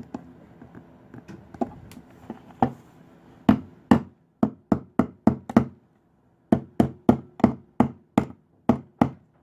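Repeated sharp metal knocks as the tabs of a jumper-cable clamp are worked down onto the cable. There are a few light ones at first, then about three a second from a little past the middle, with one short pause.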